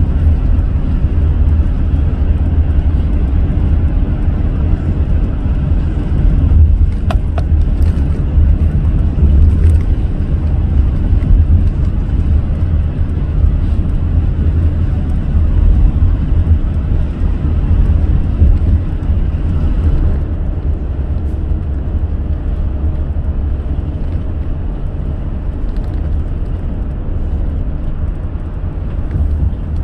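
Car driving at speed on an expressway: a steady, loud low rumble of road and engine noise, with a brief click about seven seconds in.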